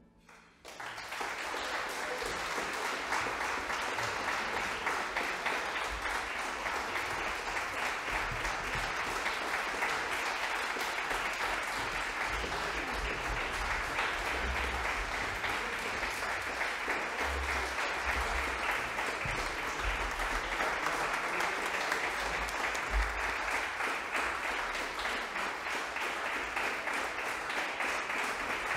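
Concert audience applauding: dense, even clapping that starts about a second in and holds steady.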